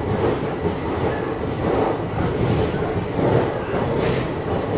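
Passenger train coaches rolling slowly along a station platform as the train pulls in, wheels rumbling on the rails, with a brief high squeal from the wheels about four seconds in.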